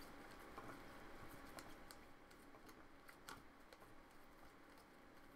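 Near silence with faint, irregular clicks of a computer keyboard being typed on.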